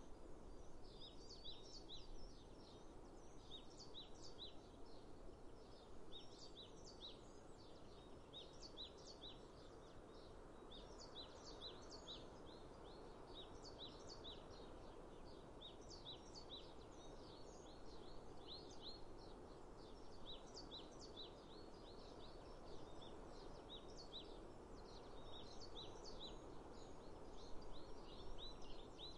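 Small birds chirping and twittering in many short, quick calls throughout, over a faint steady background hiss.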